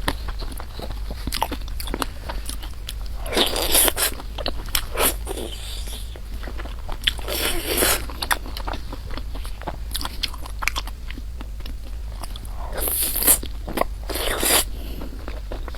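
A person eating close to the microphone: chewing and biting food, with repeated crunches and clicks and a few longer, louder noisy bursts.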